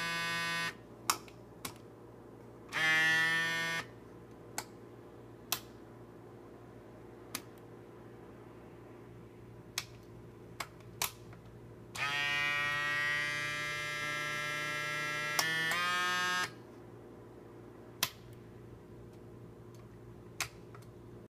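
Miniature air compressor of a scale-model air-ride suspension kit running in three spells, the longest about four seconds, its pitch sagging as it takes up load. Sharp single clicks of the kit's air valves come in between.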